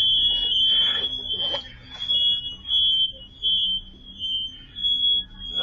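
An electronic alarm sounding a steady high-pitched tone in repeated beeps.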